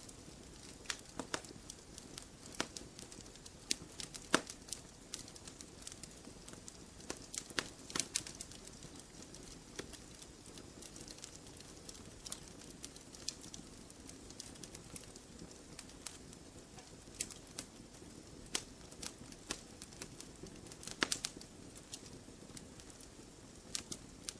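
Campfire logs burning: irregular sharp snaps and pops of crackling wood, a second or several apart, over a low steady background of the fire.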